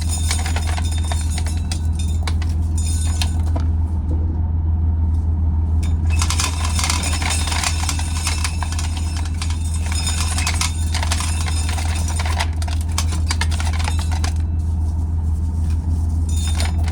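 Old tractor engine running steadily with a deep, constant hum. Over it come several bursts of dry rattling and clattering, each lasting a few seconds.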